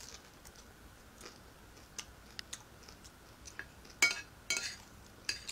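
Chewing a bite of fried vegetable spring roll, with small sharp mouth clicks. About four seconds in, a metal ladle scrapes and clinks against a plate in a few quick strokes, the loudest sounds here.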